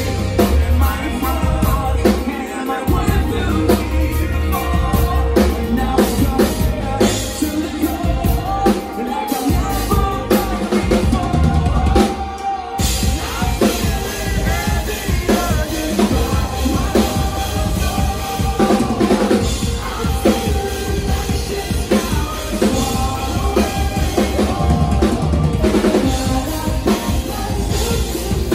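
A rock band playing live through a club PA: a full drum kit driving with kick and snare, over electric guitars and bass. The music breaks off for a split second about twelve seconds in, then comes back in full.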